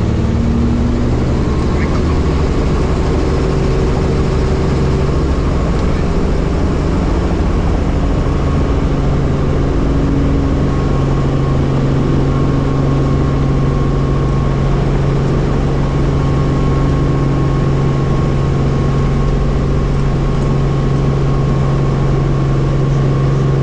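Helicopter engine and rotor noise heard from the cabin, a loud, steady drone with a constant low hum.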